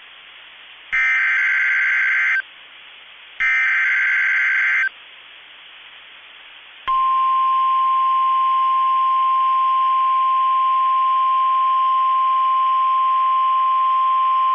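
NOAA Weather Radio EAS alert: two bursts of SAME digital header data, each about a second and a half long, with radio static hiss between them. About seven seconds in comes the steady single-tone 1050 Hz warning alarm, which signals that a warning, here a severe thunderstorm warning, is about to be read.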